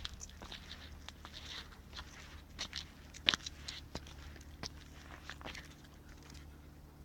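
Footsteps crunching over forest-floor litter: an irregular run of short crackles, with one sharper snap near the middle, dying away about a second before the end.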